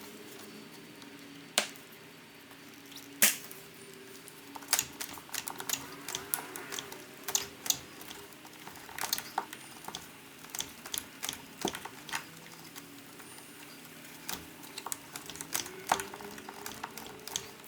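Irregular sharp clicks and taps of hands working a new rubber door weatherstrip into the door-frame slot. Two louder clicks come in the first few seconds, then quicker scattered ticking, over a faint steady hum.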